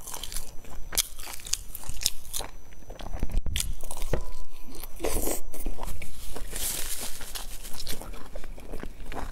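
Close-up biting and chewing of a sauce-dipped piece of crusty bread: small clicks at first, a bite about three and a half seconds in, then several seconds of chewing.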